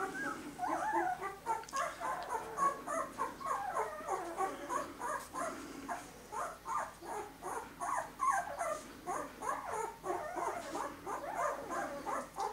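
Young puppy, about two weeks old, whimpering and squeaking without pause in short cries that waver up and down in pitch.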